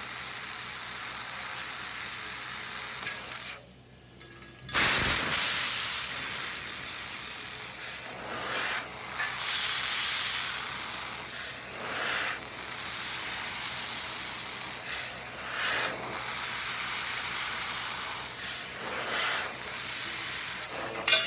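Laser tube cutter cutting square tubing with compressed air as the assist gas: a steady hiss of air from the cutting head. It stops for about a second around four seconds in, comes back with a loud burst, then swells briefly every few seconds.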